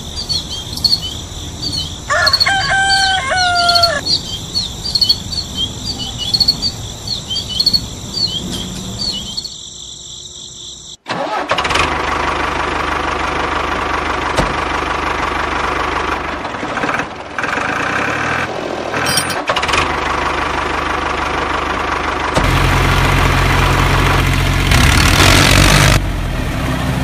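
Birds chirping with a regular high call for about ten seconds, then, after a sudden cut, a toy tractor's motor running steadily as it drives into muddy water, getting louder and deeper in the last few seconds.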